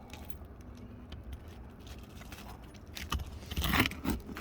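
A roof snake (shingle nail remover) working metal on metal under the shingles to pry the nails up, with a cluster of sharp clinks and scrapes about three seconds in.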